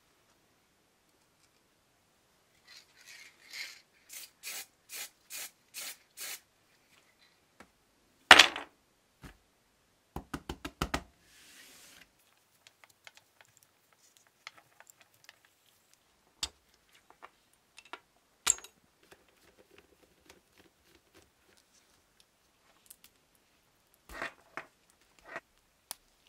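Aerosol spray paint hissing in a run of short bursts, then a single loud knock, a quick rattle and one more longer spray. After that, scattered light clicks of small metal parts being handled.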